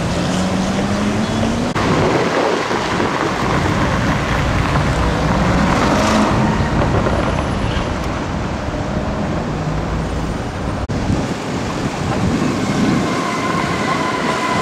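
City street traffic: cars driving past on a wet road, with one car engine rising in pitch as it pulls away in the first two seconds.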